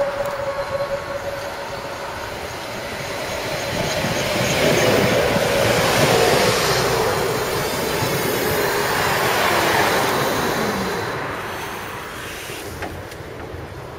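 Tatra KT4D tram pulling into a stop: the rumble of its wheels on the rails grows loud as it passes close, with a high wheel squeal about halfway through. Near the end a falling whine comes as it slows and the noise dies away.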